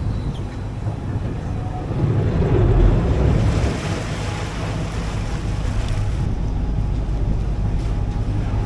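Ferry's engines running with a steady low drone while the boat turns and manoeuvres alongside the wharf, with propeller wash churning the water at the stern. Wind buffets the microphone, and the rush swells briefly about two to three seconds in.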